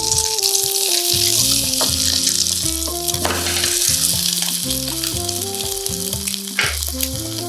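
French toast sizzling as it fries in butter in a frying pan, a steady crackling hiss, with light background music playing over it.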